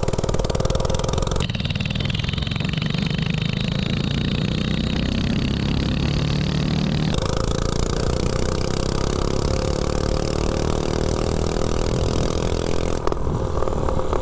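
A 179cc single-cylinder four-stroke snowblower engine on a mini bike, running with no exhaust pipe while the bike is ridden. Its note rises slowly in pitch. It turns duller about a second and a half in and sharper again about seven seconds in.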